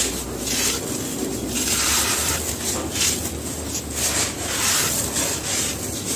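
Gritty, dry cement being crumbled: repeated crisp crumbling bursts, roughly one or two a second.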